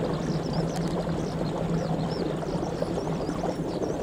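Double-headed steam train, two small tank locomotives hauling coaches, working away into the distance: a steady rushing rumble with a low hum. High, repeated chirping calls sound over it.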